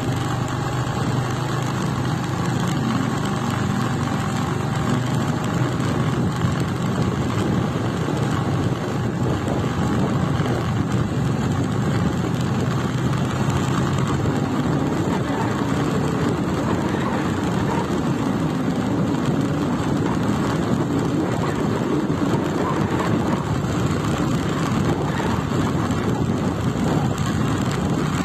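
Steady rushing of wind on the microphone with a motorcycle running underneath, the sound of riding slowly along.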